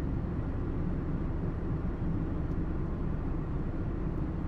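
Tractor engine running steadily, a low even rumble with no change in pace.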